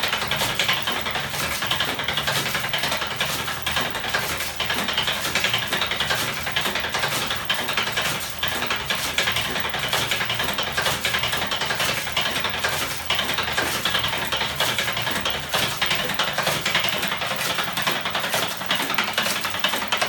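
A home-built electromagnetic ornithopter engine running steadily, its crank, swinging arms and coil mechanism making a fast, even clatter of rapid clicks.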